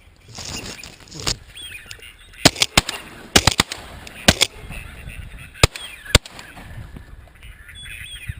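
Ducks quacking and honking, with a volley of about ten sharp shotgun shots from several guns between about one and six seconds in, some fired in quick succession.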